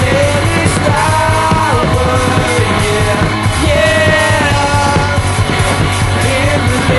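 Rock song playing at a loud, steady level: a full band mix with a heavy low end and a melodic lead line bending in pitch above it.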